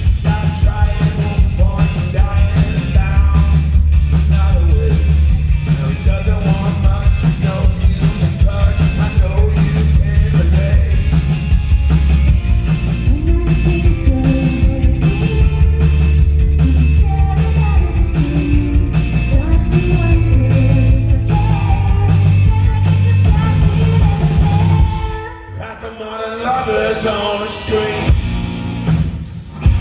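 Rock band playing live with singing, heavy in the bass and drums. About 25 seconds in the full band drops out briefly, leaving a thinner, quieter passage before it builds again.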